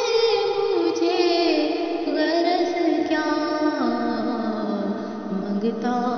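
A solo voice singing an Urdu naat, holding a long ornamented line that steps down in pitch, with a new phrase starting near the end.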